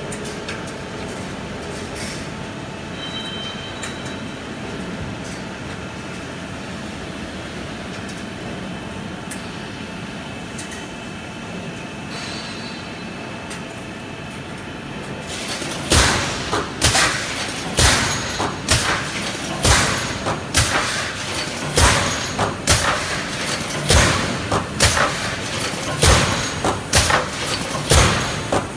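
Pneumatic semi-automatic wire mesh welding machine: steady workshop hum for the first half, then, a little past halfway, the machine starts cycling. Its air-driven welding heads clamp and weld the wire with a loud, sharp clack, about one to two times a second.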